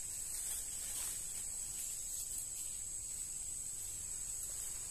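A steady, high-pitched chorus of insects shrilling in the forest undergrowth.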